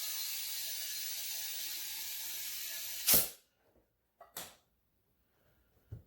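Compressed air hissing steadily into a three-wheeler tire to seat its bead, the tire not yet popped over the last bead. About three seconds in the hiss ends with a short louder burst, followed by a couple of light knocks.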